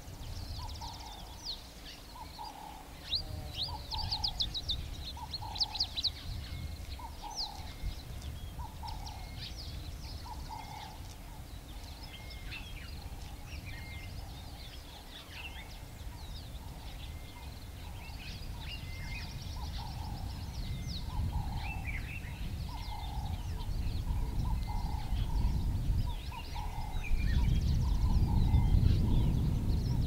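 Several birds chirping and trilling, with one repeating a short lower call about once a second, over a low rumble that grows louder near the end.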